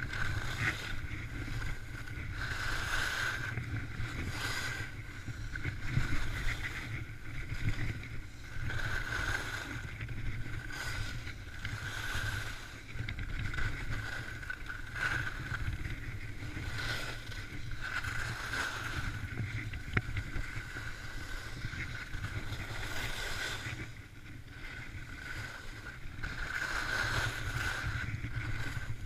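Skis turning on groomed snow: a scraping hiss of the edges that swells with each turn, about once every second or so, over steady wind rumble on the microphone.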